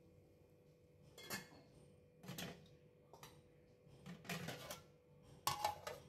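A metal spatula scraping and clinking against a kadai of curry in a few short strokes, then a steel plate set over the pan as a lid, the loudest clink near the end with a brief metallic ring.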